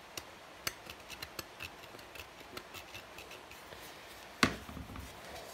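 Light, scattered clicks and scrapes of two metal putty knives being handled, their blades crusted with dried adhesive and plaster, with one louder knock about four and a half seconds in.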